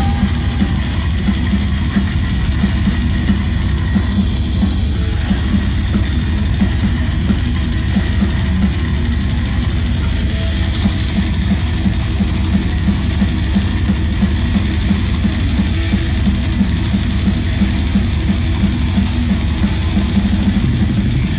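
Thrash metal band playing live: distorted electric guitars, bass and a drum kit driving a fast, steady beat.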